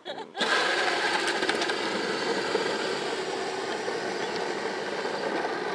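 Power Wheels Lightning McQueen ride-on, upgraded from 12 to 18 volts, driving off: its electric drive motors and gearboxes whine steadily and its hard plastic wheels rumble on the asphalt, starting suddenly about half a second in.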